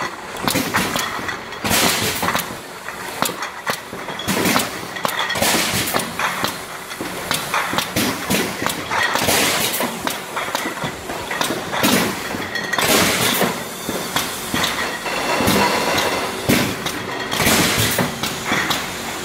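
Butane gas cartridge production line running: metal cans knock and clatter along a steel conveyor over the steady noise of the filling machinery, with repeated short bursts of hiss.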